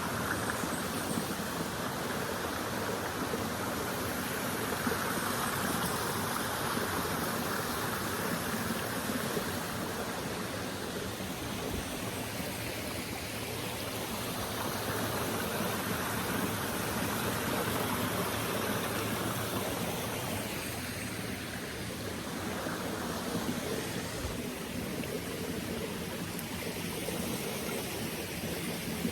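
Rushing water of La Coca Falls and its rocky stream: a steady, even hiss that swells and eases a little.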